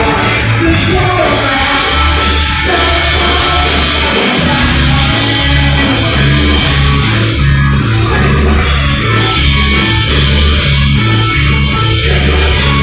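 Loud rock music with a steady, pulsing bass beat and a singing voice.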